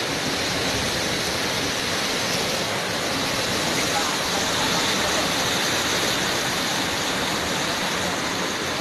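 Fast-flowing river floodwater rushing past a bridge: a steady, even rushing noise.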